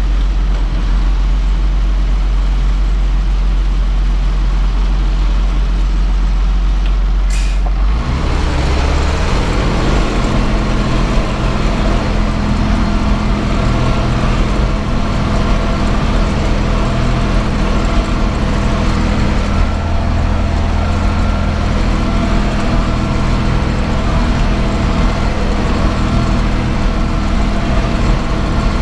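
Zetor tractor's diesel engine heard from inside the cab, running low and steady, then after a short click about eight seconds in, picking up to a higher, fuller note that holds steady.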